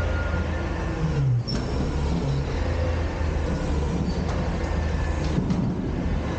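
Front-loader garbage truck's diesel engine running steadily as the truck moves, a continuous low rumble with a brief dip about a second and a half in.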